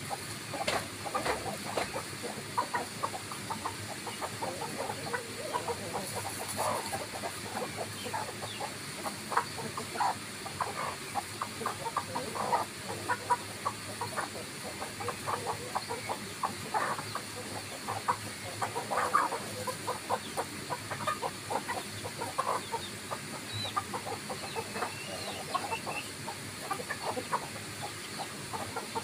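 Roosters and hens clucking while foraging: a steady run of many short clucks, with a few louder ones among them.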